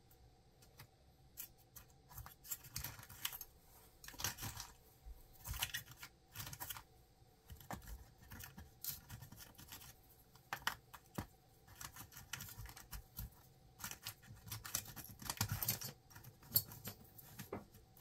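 Faint, irregular clicks and rustles of small electronic parts, loose diodes, being handled and dropped into foam-core compartments in a wooden box.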